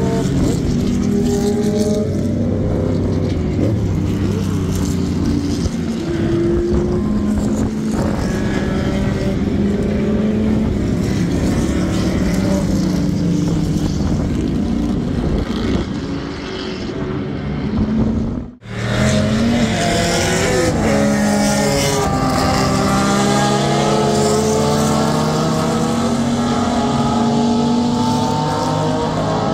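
Historic 1960s–70s sports-prototype race cars passing at racing speed, their engines revving up and down through gear changes. The sound drops out briefly about two-thirds of the way through.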